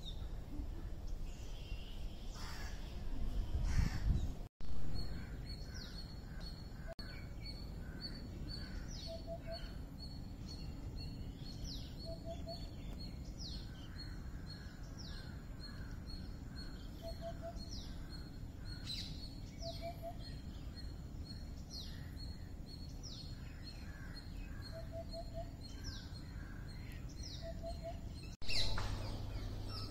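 Outdoor bird chorus over a low ambient hum. About four seconds in the sound changes abruptly. From then on there are many short, falling whistled calls, a steady high pulsing trill, and a soft three-note call repeated every two or three seconds.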